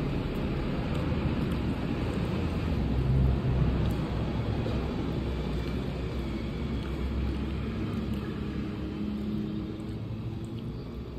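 Low rumble of road traffic, swelling to its loudest about three seconds in and easing off toward the end.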